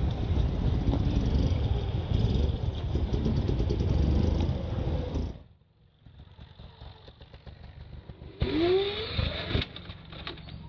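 Electric Motion EM 5.7 electric trials motorcycle hopping up a rock: about eight and a half seconds in, its electric motor gives a short rising whine with sharp knocks of the tyres on rock, lasting about a second. Before that, a loud steady low rumble that cuts off abruptly about five seconds in.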